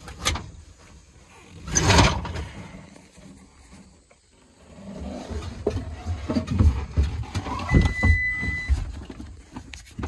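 Skid loader seat being slid forward on its rails after its release lever is pulled: one loud scraping slide about two seconds in, then a run of low knocks and rattles from handling in the cab, with a brief steady high beep near the end.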